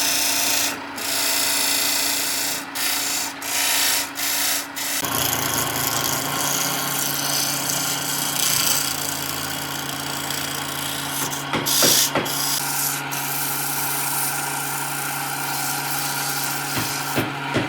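A power tool abrading wood, with several brief breaks in the first few seconds. About five seconds in the sound changes to a steadier run with a low motor hum under it, and a couple of sharp knocks come near the middle.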